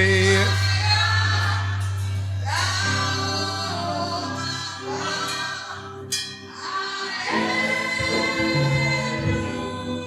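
Church choir and congregation singing a Yoruba gospel praise song over a steady low sustained accompaniment note.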